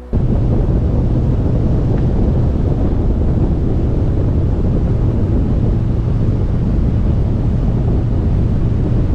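Wind rushing over the microphone on a moving motorcycle: a loud, steady roar with a low engine drone underneath.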